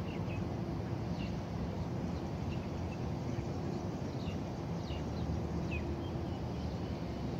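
Outdoor ambience: scattered short bird chirps over a steady low background rumble.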